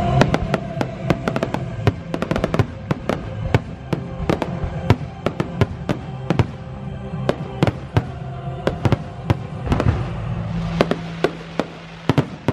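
Fireworks display of aerial shells bursting overhead: a rapid, irregular string of sharp bangs, dozens of them, without a break.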